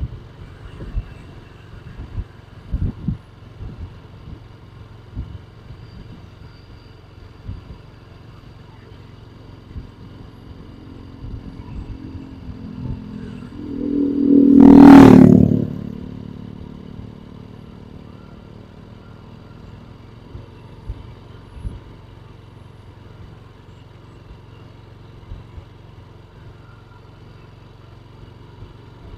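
A small motorcycle passes close by, its engine swelling to a loud peak about halfway through and then fading quickly. Behind it is a steady low hum with scattered short knocks.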